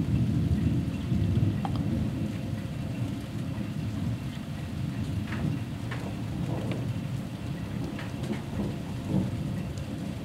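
Low rolling rumble of thunder, loudest in the first couple of seconds and then easing off, under steady rain with scattered sharp drip ticks.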